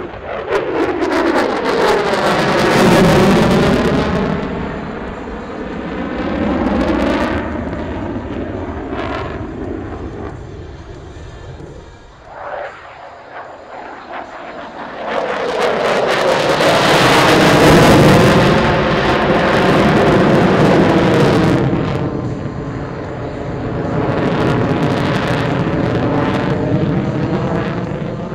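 F-22 Raptor's twin Pratt & Whitney F119 turbofans roaring through low demo passes, with two big swells, around three seconds in and again from about 15 to 21 seconds, the pitch of the roar sweeping up and down as the jet goes by. The afterburners are lit near the end.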